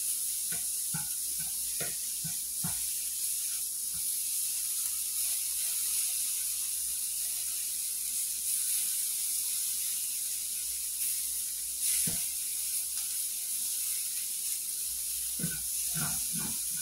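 Diced chicken sizzling in a ceramic frying pan, a steady hiss, with scattered taps and scrapes of a plastic slotted spatula stirring it, mostly in the first few seconds and again near the end.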